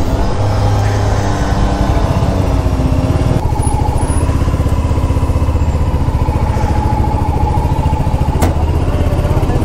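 Royal Enfield motorcycle engine running at low revs with an even, steady chug while the bike creeps along in slow traffic. A single sharp click comes near the end.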